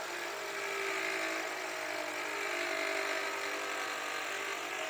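Toyota 3ZR 2.0 engine running with a loud, steady mechanical whirring noise from the alternator: its overrunning clutch pulley has failed and gone loose, wearing the alternator shaft.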